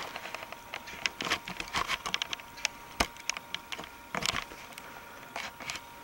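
Handling noise of a handheld video camera as it is swung about: irregular clicks, taps and rustles, the sharpest about halfway through and another cluster a little later, over a faint steady high tone.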